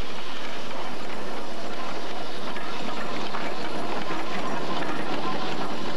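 Steam traction engine on the move close by: a steady clatter of its running gear and iron-rimmed wheels.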